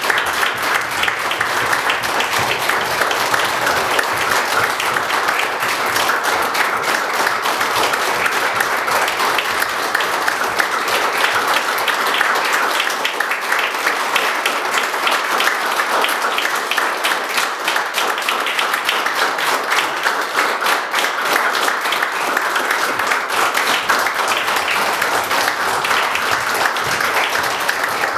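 Audience applauding steadily, a dense, even clapping without breaks.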